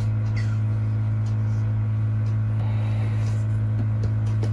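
Loud, steady low electrical mains hum, with a few faint clicks of handling.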